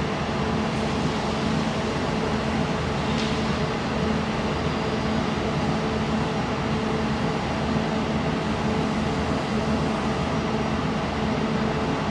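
Steady machine hum with fan noise, a constant low drone with a broad hiss over it, unchanging throughout; one faint tick about three seconds in.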